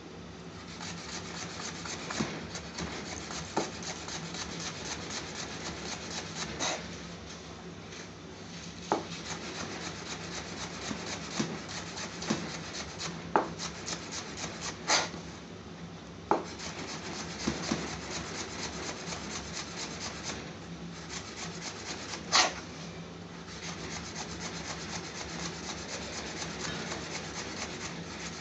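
Chef's knife rapidly slicing cucumber into thin shreds on a plastic chopping board: a fast, even tapping of the blade against the board, broken by a few short pauses and some louder knocks.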